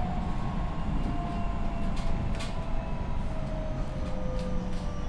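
Tokyo Metro 10000 series train heard from inside the car: the whine of its Mitsubishi IGBT inverter-driven traction motors falls slowly in pitch as the train slows, over the steady rumble of wheels on rail with a few scattered clicks.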